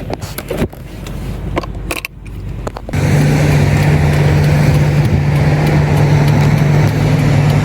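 A four-wheel-drive vehicle under way: a few knocks and clatters, then about three seconds in a loud, steady low engine and road drone sets in and holds.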